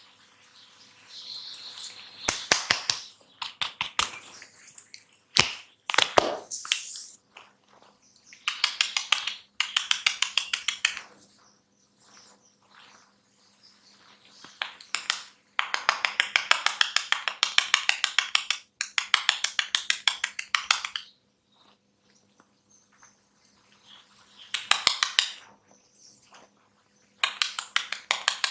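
Barber's head massage: repeated runs of rapid, rhythmic snapping and crackling strikes of hands and fingers on the scalp and hair, each run a few seconds long with short pauses between. A few single sharp cracks come before the first run.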